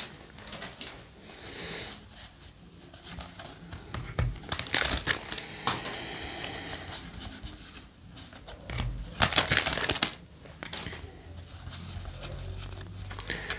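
Yu-Gi-Oh! trading cards being flicked through and slid against each other by hand, in a few short rustling bursts, with the crinkle of a foil booster-pack wrapper.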